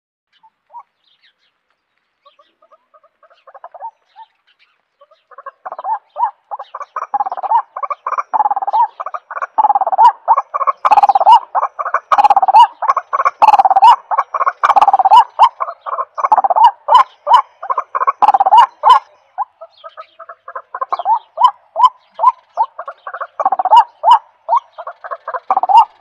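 White-breasted waterhen calling: a long series of short repeated notes, several a second. It starts faintly, grows loud after about five seconds and carries on, easing briefly near the twenty-second mark.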